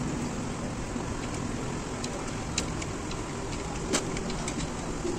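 A spanner clicking against metal as the bolts on a truck brake servo's flange are worked loose: a few light, scattered ticks, the sharpest about four seconds in, over a steady background noise.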